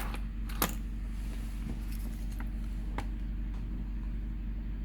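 A few light clicks and taps of small parts being handled on the bench: a sharp one about half a second in and another about three seconds in. Under them runs a steady low electrical hum.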